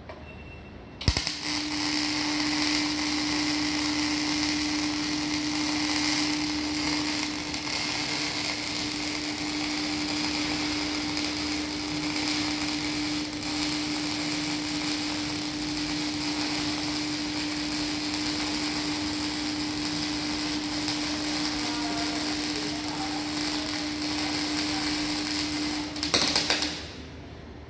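Electric arc welding: the arc strikes about a second in with a sharp crack, then burns steadily with a dense crackling hiss over a steady low hum for about 25 seconds before it is broken off.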